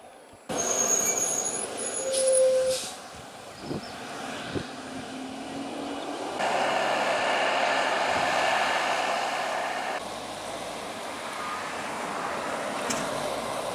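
Road vehicle noise in several segments that change abruptly about half a second in, around six and a half seconds and at ten seconds, with brief high whistling tones near the start.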